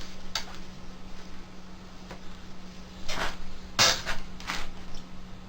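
A computer mouse being fumbled among cables: a few short rustles and clatters, the loudest about four seconds in, over a steady low hum.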